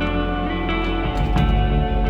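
Background music: instrumental track with guitar.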